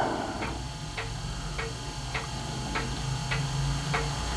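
Steady, regular light ticking, a little under two ticks a second, over a low steady hum.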